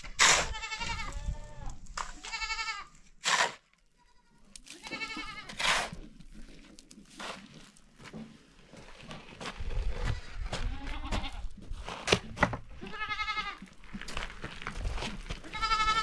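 Goats bleating several times in wavering calls, mixed with the scrape and thud of a shovel working soil into a metal wheelbarrow.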